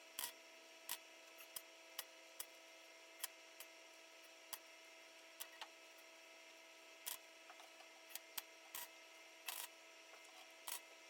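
Irregular sharp clicks and a few brief crackles, roughly one a second, over a faint steady electrical hum.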